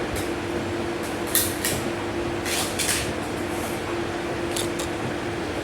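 Light clicks and crinkles of a plastic-packaged Scentsy wax bar being handled, with a couple of quick sniffs about two and a half seconds in, over a steady hum.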